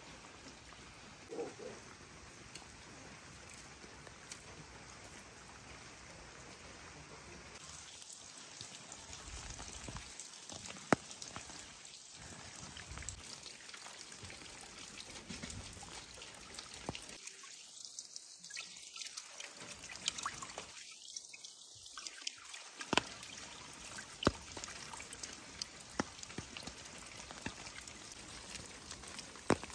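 Rain falling with scattered drips, joined after several seconds by water pouring from a pipe onto stones, with hands being rinsed under the stream.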